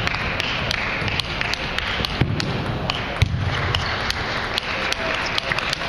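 Table tennis ball struck back and forth in a rally, sharp irregular clicks off bats and table, over the steady hum of a large sports hall.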